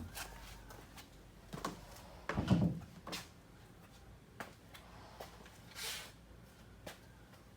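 A few light knocks and clunks of handling, the loudest a dull thud about two and a half seconds in, with a brief hiss near six seconds.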